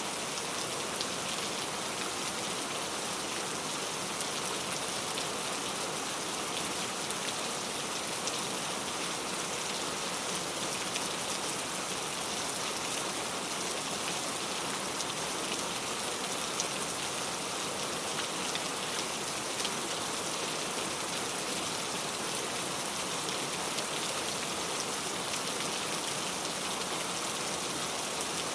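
Steady rain falling, an even hiss with the patter of individual drops hitting a surface.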